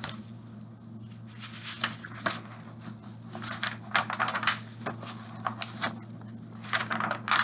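Irregular small clicks, taps and rustles of a paper picture book being handled and its pages turned, over a steady low hum.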